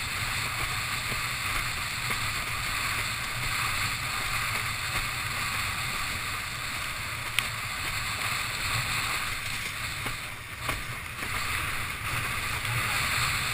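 Water rushing under a windsurf board planing at speed, with wind buffeting the camera's microphone: a steady rushing noise, with one sharp click about seven seconds in.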